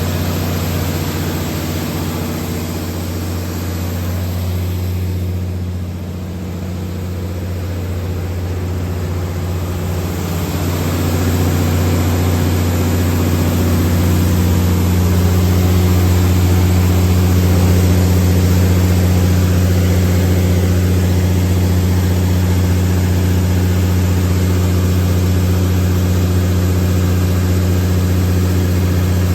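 MTU/Detroit Diesel 12V2000 V12 diesel engine of a Kohler 750 kW generator set running at a steady speed with a deep, even drone, growing louder a little after ten seconds in.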